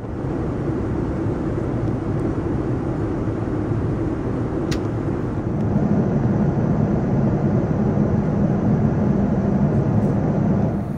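Steady cabin noise of a Boeing 787-9 in flight, a low rumble and hiss of airflow and engines heard from a window seat beside the engine. It grows slightly louder a little past halfway, with a faint click about five seconds in.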